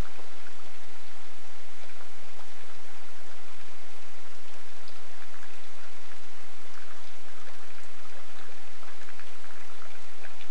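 Steady rain falling, with a dense scatter of single drop ticks through the hiss.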